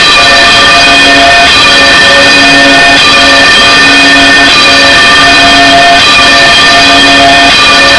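Church bells swinging full circle in a general peal, heard from inside the belfry beside them: very loud, several overlapping ringing tones, re-struck roughly once a second as the bells swing over.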